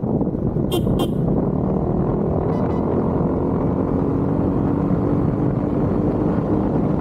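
Riding a motorcycle on the road: wind rushing over the microphone with a steady engine drone, and two quick sharp clicks about a second in.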